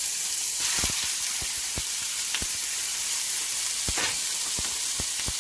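Hot oiled skillet sizzling steadily on the stove, with scattered sharp pops and crackles of spitting oil; the sizzle is the sign the pan is hot enough to cook in.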